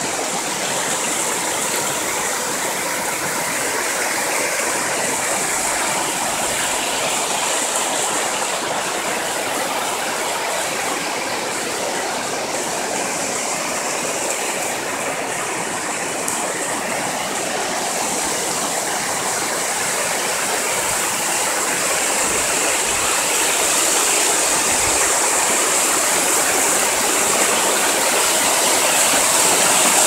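Water of a waterfall cascading over sloping rock slabs, a steady rush of white water that gets a little louder toward the end.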